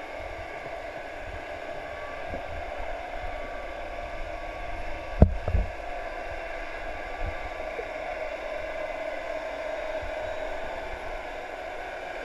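Muffled, steady underwater hiss and rumble picked up by a GoPro Hero 3 inside its waterproof housing, with two dull low thumps in quick succession about five seconds in and a softer one a couple of seconds later.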